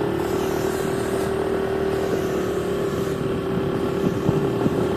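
Motorcycle engine running at a steady pitch while being ridden, laden with heavy sacks of corn.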